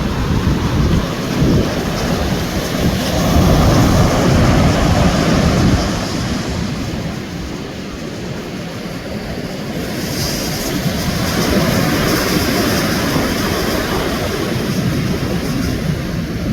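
Sea waves surging and breaking on a beach, with wind buffeting the microphone. The surf swells loudest a few seconds in and again past the middle.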